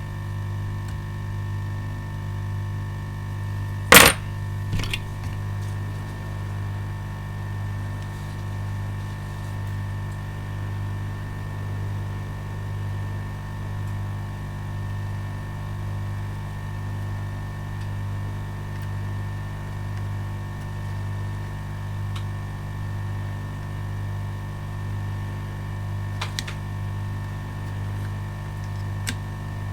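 Hot air rework station's blower running with a steady, slightly wavering hum. A sharp click of a small tool or object set down on the bench about four seconds in, with a few fainter ticks later.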